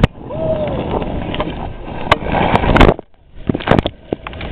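Rushing water and wind buffeting the microphone as a rider slides fast down a water slide, with repeated knocks and bumps and a short squeal about half a second in.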